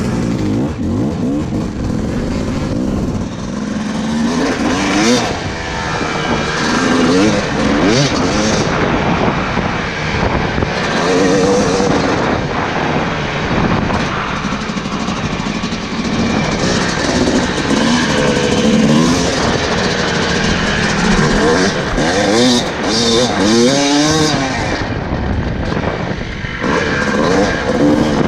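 Yamaha YZ dirt bike engine heard on board from the rider's helmet, revving up and falling back again and again as the throttle is opened and closed while riding.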